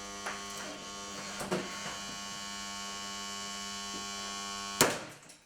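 Electric motor of a damaged Home Collection KYT-30 box fan humming steadily, with a couple of faint knocks. Near the end comes one sharp click or knock, after which the hum dies away.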